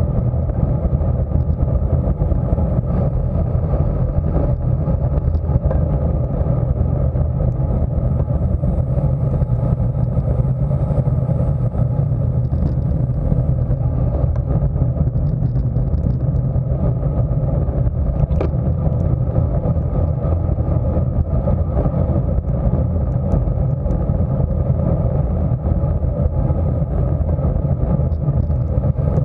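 Steady wind rumble on the microphone of a camera on a road bicycle riding at about 24 mph, with the hum of tyres on asphalt.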